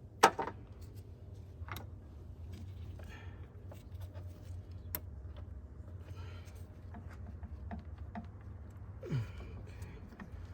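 Hand work on an engine as fuel injectors are twisted and pulled out: one sharp metallic click about a quarter second in, then scattered small clicks and knocks and some rustling, over a low steady hum.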